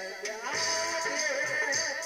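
A man singing a song into a microphone, his voice wavering and gliding between notes, with a rhythmic rattling percussion behind it.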